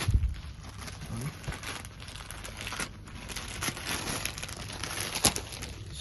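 Crinkling and rustling of sarees being handled and unfolded, with a thump right at the start and a sharp click about five seconds in.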